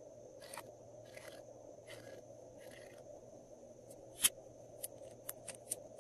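A marker pen's tip scratching and dabbing on slime, four short strokes, then a sharp plastic click about four seconds in as the pen's cap snaps on, followed by several lighter plastic clicks from handling the pens.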